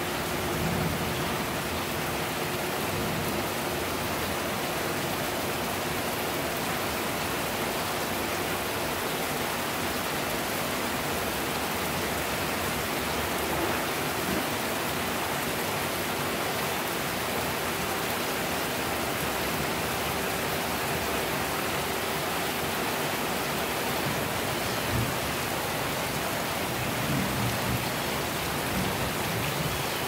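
Heavy rain falling steadily on a building rooftop: a constant, even hiss of drops.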